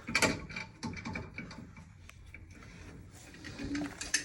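Scattered clicks and knocks, the loudest cluster right at the start and a sharp one just before the end, with a short low hum shortly before it.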